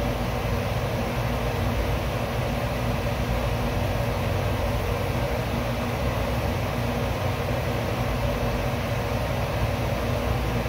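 Steady background hum with hiss, continuous and unchanging, like a running machine or ventilation unit in the room.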